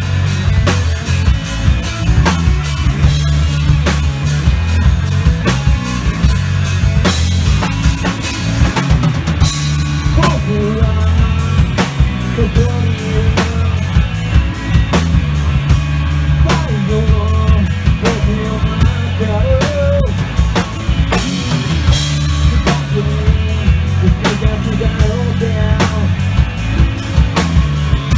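Rock band playing: drum kit, electric guitar and bass guitar, with a singer coming in about ten seconds in.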